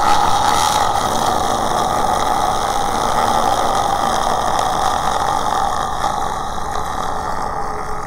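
Ghost horror sound effect: a rough, ghostly drone held steadily without a break, easing off slightly near the end.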